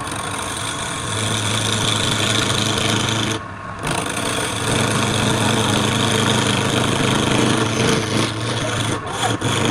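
A wood lathe is running while a tool works the spinning wood, making a steady rasping scrape over the motor's hum. The scrape breaks off briefly about three and a half seconds in, and quick ticks start near the end.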